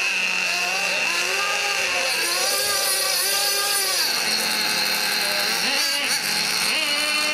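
Radio-controlled car's motor revving up and down again and again as the car is driven, with a steady high whine underneath.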